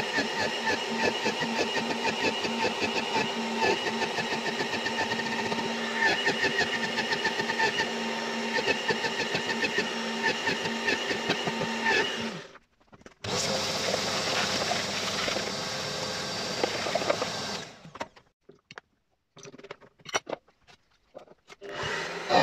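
Bosch bench drill press running and boring holes into a wooden board, a steady motor hum under the noise of the bit cutting the wood. It cuts off sharply about halfway through and comes back with a different pitch for a few seconds. Then it drops to near silence with a few short noises, and starts up loud again at the very end.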